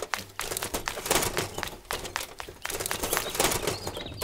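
A rapid, irregular run of light clicks and crackles, with a faint low hum underneath.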